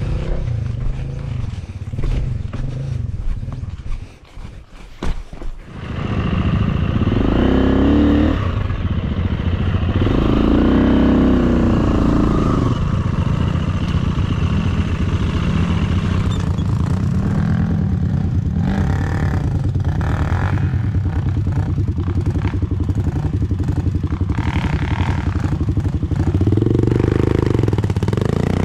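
Dirt bike engine running as the bike is ridden up a rocky trail, its revs rising and falling. There is a short lull about four seconds in.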